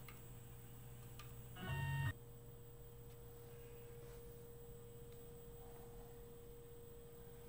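Steady electrical hum with a steady mid-pitched tone and a faint high tone, a couple of light clicks near the start and about a second in, and a brief buzzy tone lasting about half a second near two seconds in, which is the loudest sound.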